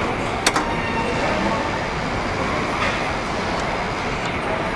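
Steady rumbling din in a large hangar, with one sharp knock about half a second in.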